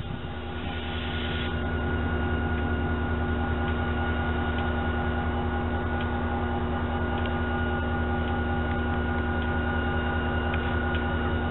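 EMD SD40-2 diesel-electric locomotive's two-stroke diesel engine running steadily. It is a low throb with a steady hum and whine over it, building over the first couple of seconds and then holding level.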